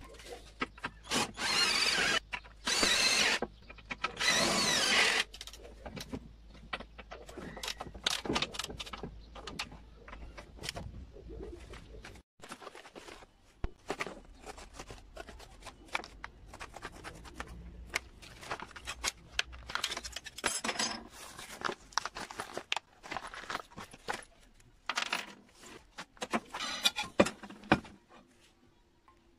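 Metal mower blade parts being handled and fitted: scattered clinks and taps of the steel blade carrier disc, blade and bolts. There are three loud, harsh noises, each about a second long, in the first five seconds.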